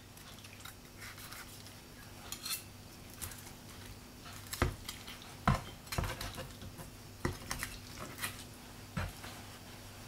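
Kitchen knife and carving fork cutting into a crisp-skinned roast duck on a plastic cutting board: scattered clicks, knocks and scrapes, the loudest about halfway through. A faint steady hum runs underneath.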